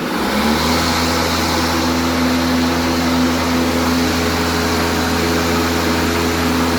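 DeWalt 20V MAX 21.5-inch cordless mower's electric motor and blade spinning up as the bail bar is pulled, then running at a steady whir with a low hum.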